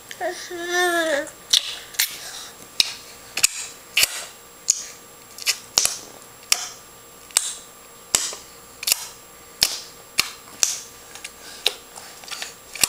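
A series of sharp tongue clicks, a little more than one a second, going on steadily. In the first second there is a short rising-and-falling babble from the baby.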